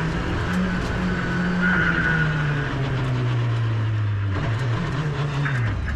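Škoda Fabia RS Rally2's 1.6-litre turbocharged four-cylinder engine heard inside the cockpit at speed, its pitch sagging slowly as the revs drop. Past the middle the revs rise briefly, then fall off quickly near the end.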